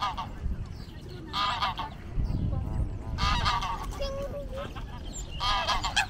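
Geese honking: a series of loud, nasal honks, roughly one every one and a half to two seconds.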